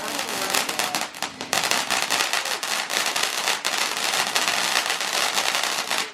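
Garden firework crackling: a dense, continuous run of rapid pops and crackles, easing briefly about a second in and stopping suddenly at the end.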